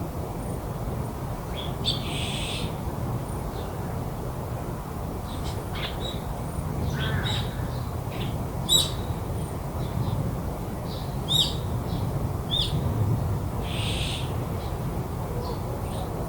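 Garden birdsong: a harsh, noisy call about two seconds in and again near the end, with scattered short chirps and calls in between, over a steady low background hum.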